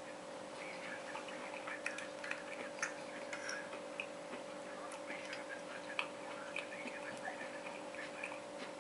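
Metal spoon clicking and scraping against a ceramic plate while rice and curry are scooped, in many light, irregular ticks over a steady faint hum.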